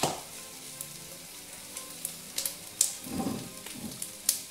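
Floured beef pieces sizzling as they brown in hot olive oil in a cocotte: a steady hiss with sharp crackling pops, about six of them, and a muffled thump a little past three seconds in. The sizzle is the sign that the meat is starting to brown.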